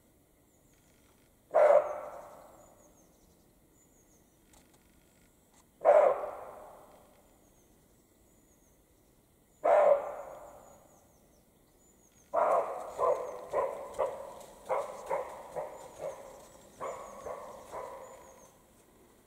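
European roe deer barking: three loud, dog-like single barks about four seconds apart, each ringing out in a long echo, then a quick run of about ten shorter barks, roughly two a second.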